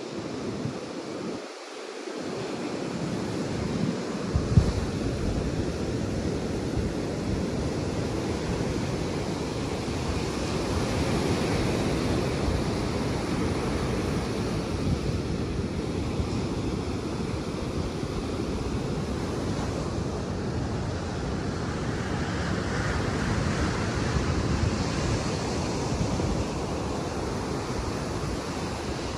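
Atlantic surf washing steadily onto a sandy beach, with wind rumbling on the microphone.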